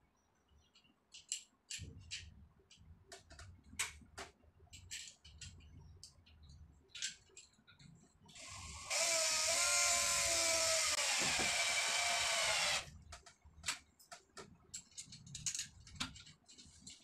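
Cordless drill running in one steady burst of about four seconds, its bit pressed against the back of a ceramic toilet bowl. Before and after come scattered light clicks and taps of hand work on the porcelain.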